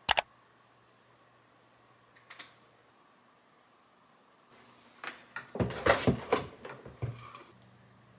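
Desk handling noises: a sharp double click at the start, a faint knock about two seconds in, then a run of knocks and clicks from about five and a half seconds in.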